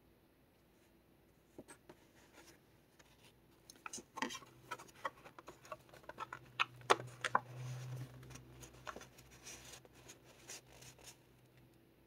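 Paper and cardstock of a handmade junk journal being handled: scattered soft rustles, scrapes and taps as a photo card and a page pocket are worked by hand. They start a few seconds in.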